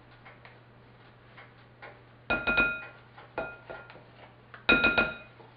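Metal measuring spoon scooping cocoa powder and tapping against a glass mixing bowl: a few light clicks, then clusters of sharp taps that ring briefly, about two seconds in, again a second later, and loudest near the end.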